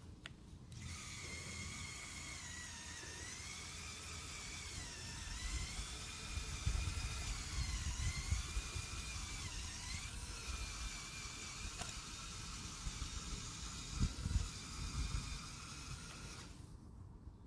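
Electric motors of a LEGO Technic Zetros trial truck whining through its gears as it drives, the pitch dipping several times as the motors slow under load. Low rumbles and knocks from the truck on the terrain come in the middle and again near the end.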